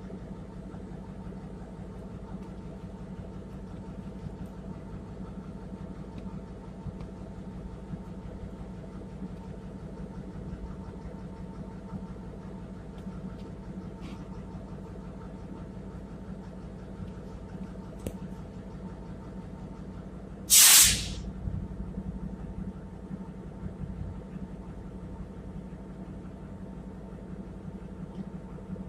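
Steady low mechanical drone of a moving train heard from on board, broken about twenty seconds in by one short, loud hiss.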